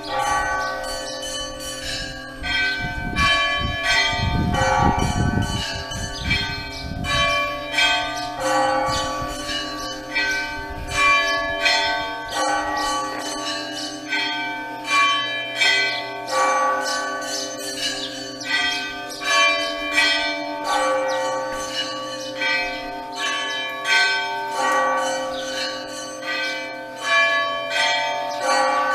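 Orthodox church bells ringing: several bells of different pitch struck over and over in a repeating rhythmic pattern, each strike left ringing. A low rumble runs beneath them for a few seconds near the start.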